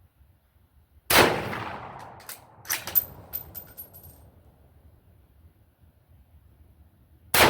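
Siamese Type 46/66 Mauser bolt-action rifle firing an 8x52mm rimmed handload, a sharp shot with a long decaying echo about a second in. A quick run of metallic clicks and clanks with a brief high ringing follows as the bolt is worked, and a second shot comes at the very end.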